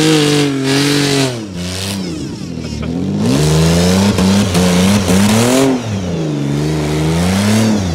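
Straight-piped engine of a wrecked Ford Escape, run with no oil in it, revving hard as it drives; the engine note climbs and falls three times, with a rushing noise over the top while the revs are high.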